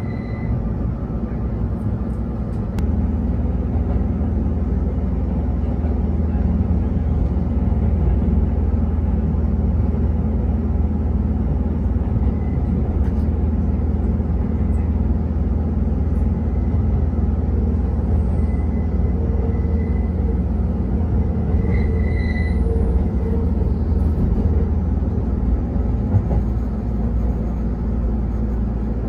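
Kintetsu 30000-series Vista EX limited-express train running, heard from inside the car: a steady low rumble of the wheels on the rails that grows louder about three seconds in. A few faint, brief high-pitched tones come and go about two-thirds of the way through.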